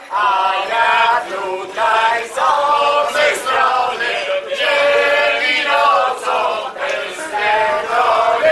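A group of party guests singing a song together in chorus, men's and women's voices mixed, in held phrases that break every second or so.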